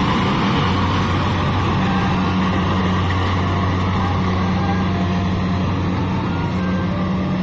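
Kubota DC-70 combine harvester running steadily: a constant diesel engine hum under a broad, even mechanical noise.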